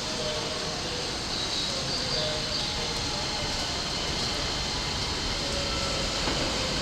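Keikyu Line electric train running near the station: a steady rumble that grows gradually louder, with a few faint short tones over it.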